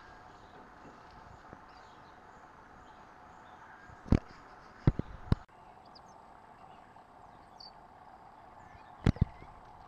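Sharp knocks against a steady outdoor background hum: three spaced about half a second apart around four to five seconds in, then a quick pair near the end, with a few faint high chirps.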